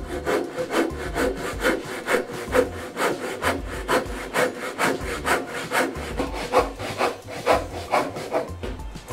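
Handsaw cutting through a length of timber at 45 degrees for a miter joint, in steady back-and-forth strokes about three a second.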